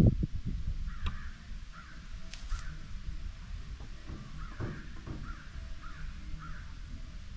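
Crow cawing repeatedly, a string of short calls spread across several seconds, over low rumbling outdoor noise with a couple of brief knocks.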